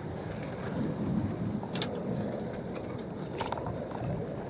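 Surf breaking and washing over shore rocks, a steady low rush with wind on the microphone, broken by a few short clicks about two and three and a half seconds in.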